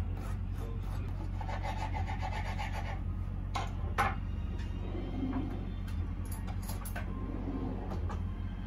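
Knife scraping spread across dry toast on a wooden cutting board, a rasping run of strokes in the first half. Two sharp knocks come about four seconds in, with a few lighter clicks after, over a steady low hum.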